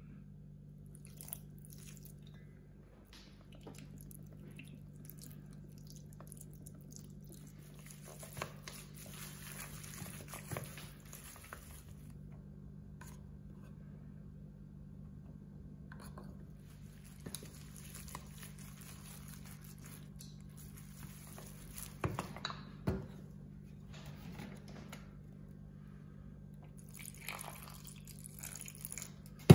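Chopsticks stirring wet ground pork in a stainless steel bowl: squishy, crackly mixing in several stretches, with sharp clicks of the chopsticks against the bowl, loudest a little past the middle. Near the end water is poured into the meat. A steady low hum runs beneath.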